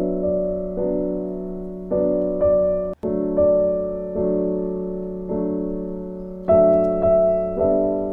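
Background music: a piano playing slow chords, each struck and left to fade, with a brief dropout about three seconds in.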